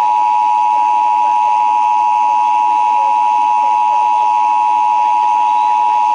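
Emergency Alert System attention signal: a loud, steady two-tone alert, held unbroken. It is the signal that precedes a broadcast EAS test message.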